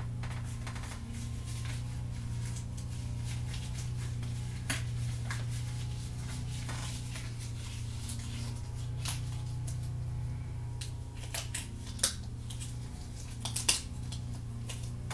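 Thin disposable gloves being pulled on and stretched over the hands: scattered crackles and sharp snaps, two of them louder near the end, over a steady low hum.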